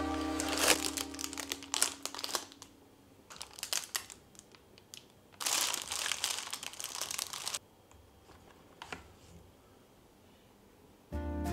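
Plastic tray and foil inner wrapper of a cookie box crinkling as they are pulled out and unwrapped, in irregular bursts, with a denser two-second stretch of crinkling about halfway through and a few small clicks after it.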